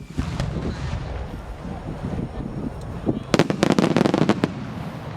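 Star mine fireworks barrage: scattered booms, then about three seconds in a rapid run of sharp crackling bursts for about a second.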